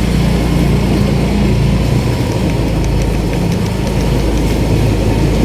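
Vehicle engine running steadily on the move, a low, even hum.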